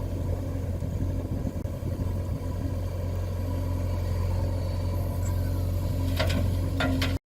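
A vehicle engine running steadily at idle, a low even hum, with two short knocks near the end.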